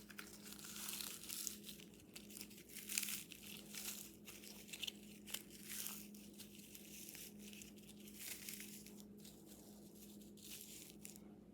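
Paper towel squishy, stiff from the freezer, being crumpled and torn apart by hand: irregular papery crinkling and tearing, busiest in the first half.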